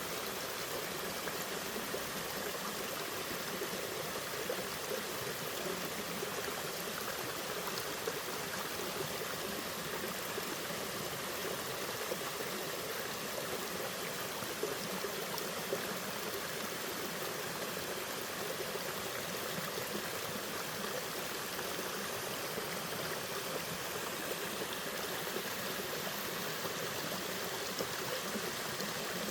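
Mountain stream water falling and splashing over rocks at a small waterfall: a steady rush with small, sharper splashes here and there.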